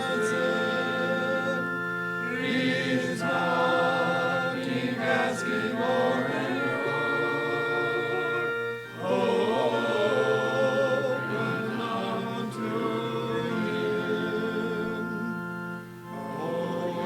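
Congregation singing a hymn together, held notes sung in phrases with short breaks about nine seconds in and near the end.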